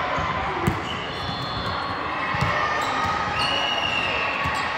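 A ball thudding on a hard indoor court floor about three times, at uneven intervals, with a few short high squeaks over a steady hall din.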